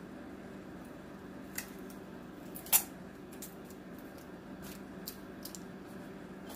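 Handling noise from a plastic trail camera: a scattering of small, sharp plastic clicks and crackles, the loudest a little before the middle, over a steady low hum.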